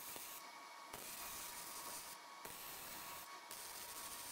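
Electric arc welding on steel: the hiss and crackle of the arc in runs of about a second, stopping briefly three times as he pauses between welds.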